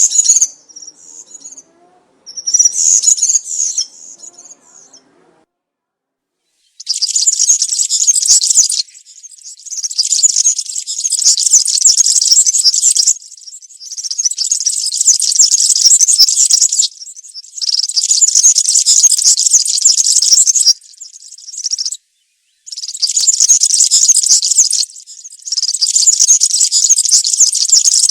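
European serin singing: a rapid, high-pitched song, first in a few short snatches, then after a brief pause in long phrases of about two to four seconds with short breaks between them.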